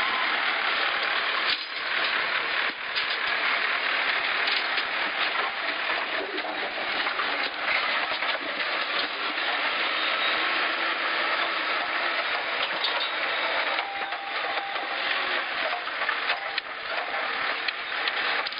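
JCB backhoe loader's diesel engine running steadily under work as its front bucket digs into and lifts rubble, with a few sharp knocks along the way.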